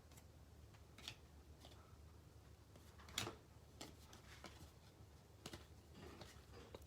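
Near silence with a few faint, short clicks and rustles of baseball cards being handled. The clearest comes about three seconds in.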